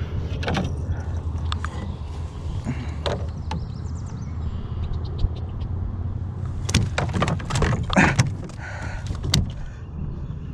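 Irregular knocks, clicks and rustles from the camera being handled, over a steady low rumble. The knocks come thickest in the second half.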